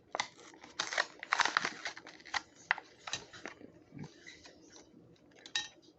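Plastic blister pack and card backing of a Hot Wheels die-cast car crackling and snapping as it is opened. Irregular crinkles and snaps come densely for a few seconds, then thin out to scattered clicks.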